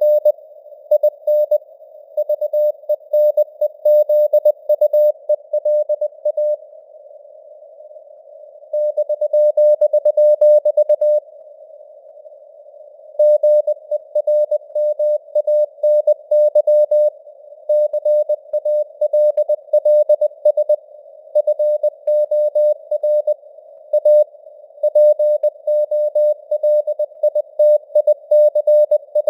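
Morse code (CW) at 20 words per minute: a single mid-pitched tone keyed in dots and dashes over simulated radio hiss, like a receiver tuned to a CW signal. The keying stops twice for about two seconds, about a quarter of the way in and again shortly before halfway.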